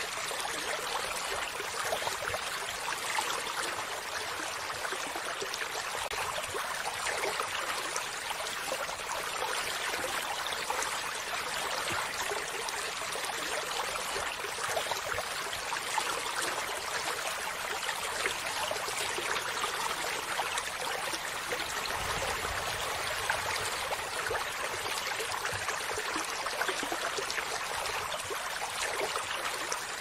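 Shallow stream flowing over rocks, a steady trickling and babbling rush of water.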